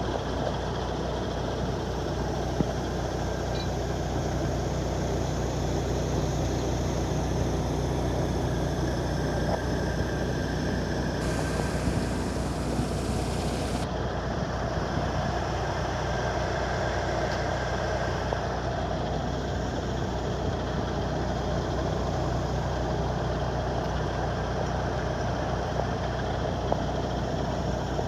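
A crane's heavy engine running steadily at a constant drone. A higher hiss joins it for about three seconds just before the middle.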